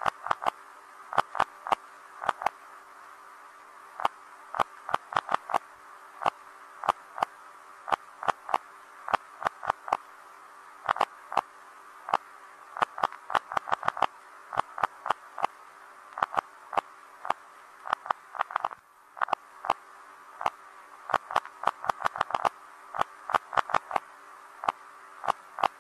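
Electronic typewriter keys being typed: sharp clicks in quick irregular runs with short pauses between them, over a faint steady hum.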